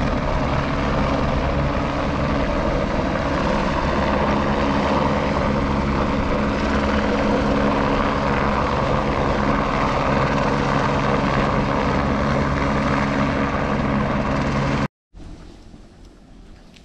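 Helicopter flying nearby, its rotor and engine running steadily and loud; it cuts off abruptly about 15 seconds in. After that, faint footsteps on a stone path.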